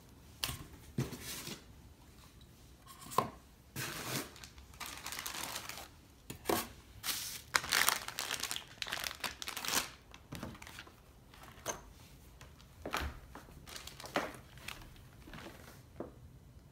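Clear plastic packaging bags crinkling and rustling as they are handled and opened, in irregular bursts that are densest in the middle. A few sharp knocks come through as small parts are set down on the board.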